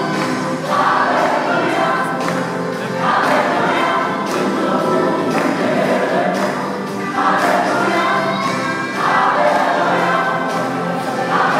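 Processional music with a choir singing over instrumental backing and a steady beat, in phrases of about two seconds.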